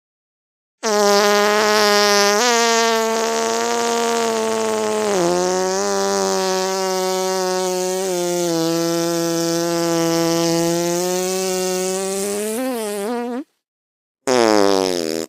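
A very long drawn-out fart, a steady low buzzing tone that dips slightly in pitch a few times and wobbles just before it stops, lasting about twelve seconds. After a short gap a second fart starts near the end.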